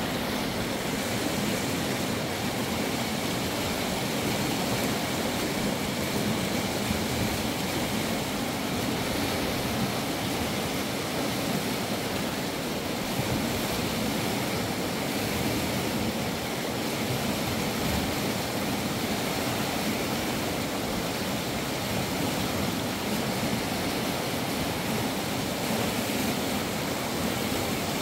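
Steady rushing of river water, an even unbroken noise.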